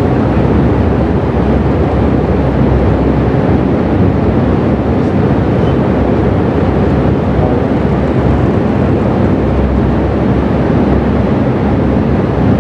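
Steady low rumbling noise with no voice, even in level throughout.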